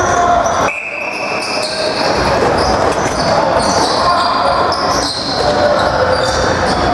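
Box lacrosse game sounds echoing in an arena: the ball bouncing and knocking against sticks and boards, with players calling out.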